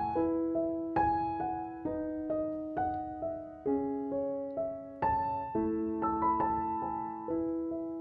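Background piano music: a slow melody of single notes over held lower notes, each note struck and fading away.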